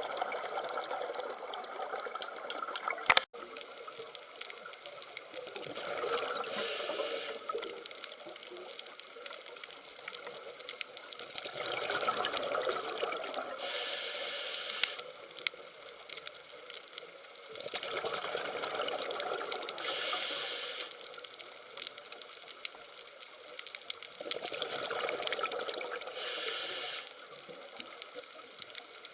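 Water sloshing and trickling in slow swells that come and go about every six seconds. A single sharp click sounds about three seconds in.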